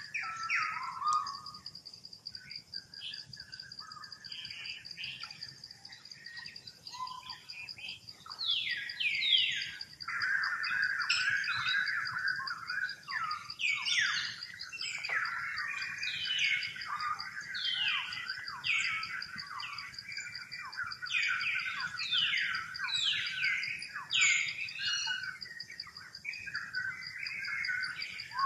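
Baby long-tailed macaque screaming in distress while being handled roughly by a bigger juvenile. Its high, falling cries are sparse at first, then come one after another from about a third of the way in, over a steady high insect drone.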